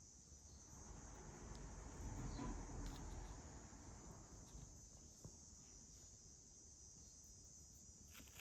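Near silence: a steady high hiss of room tone, with a faint soft rustle that swells and fades about two to three seconds in.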